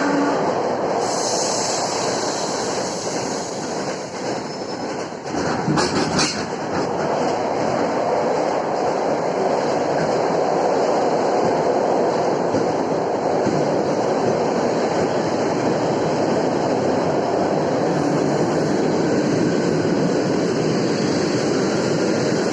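ED4M electric train running along the track with wheel-on-rail clatter and knocking from a large wheel flat on a badly worn carriage, with a cluster of sharp knocks about six seconds in.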